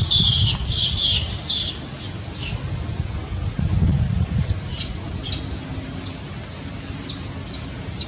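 A young macaque screaming: a quick series of shrill screams that gives way about halfway through to shorter squeals, each dropping in pitch, and these fade toward the end. These are distress screams from a small monkey threatened by a bigger one.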